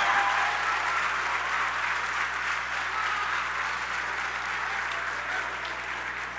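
A large hall audience applauding, the clapping slowly dying away.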